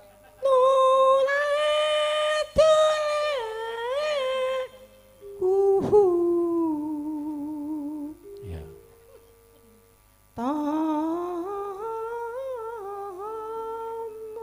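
A Javanese sinden sings a sinom tembang solo into a microphone, softly as she was asked, holding long notes with wavering ornaments. She sings three phrases with short breaks between them, and a sharp click is heard about two and a half seconds in.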